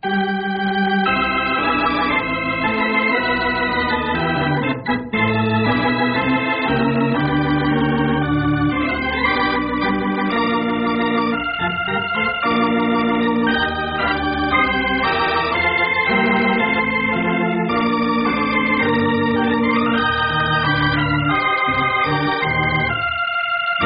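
Organ music playing the closing theme of an old-time radio show: a continuous run of held chords that shift every second or so.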